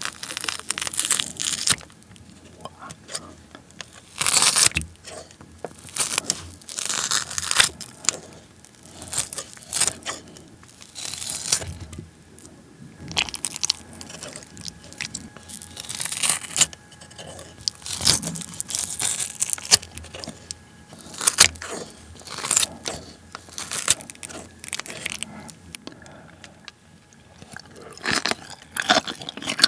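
Kitchen scissors snipping through a thick braised pork-neck steak into big chunks, with metal tongs handling the pieces, heard close up as repeated sharp cuts and scrapes. Near the end comes close-up chewing of a mouthful of curry rice and pork.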